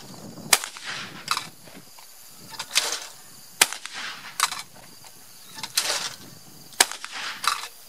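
Three shots from a Fabarm L4S 12-gauge gas-operated semi-automatic shotgun firing 1 1/8-ounce target loads, about three seconds apart. Each sharp report has shorter, duller bursts of noise just before and after it.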